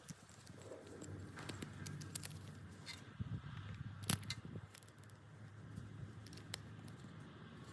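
Faint workshop handling noise: soft rustling and scattered light clicks of wooden parts being handled, with one sharper tap about four seconds in.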